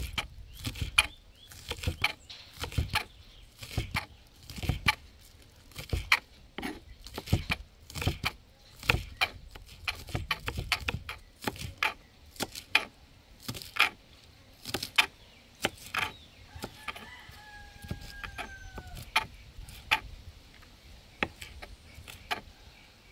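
Knife chopping seasonings: irregular sharp knocks, about one or two a second. A short bird call with a slightly falling pitch comes about seventeen seconds in.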